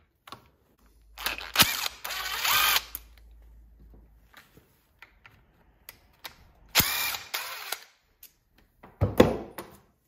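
Cordless drill-driver running in three short bursts, about a second and a half, a second, and half a second long, while removing bolts from a string trimmer's engine housing. Small clicks and handling knocks come between the bursts.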